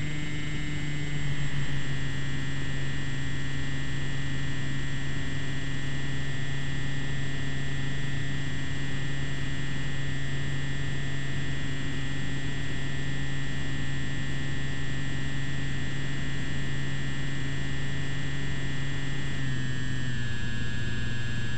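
Electric motor and propeller of a Slowstick RC plane running at a steady whine. The pitch steps down slightly about a second and a half in and again near the end. At the very end the tones start to fall away as the throttle is cut and the propeller spins down.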